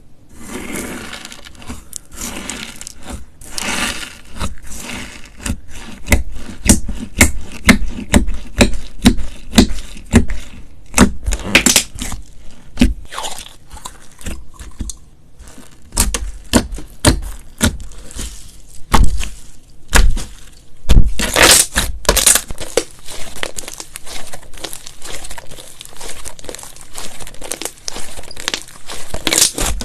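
Slime being squeezed, stretched and poked by hand, giving a run of sharp crackling pops and clicks at irregular intervals, with a few louder bursts of crackle.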